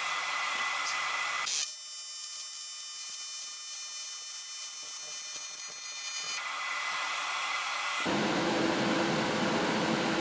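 AC TIG welding arc on aluminum sheet, buzzing and hissing steadily as a corner seam is welded. A high whine rides on it for a few seconds in the middle, and the sound turns fuller and lower about eight seconds in.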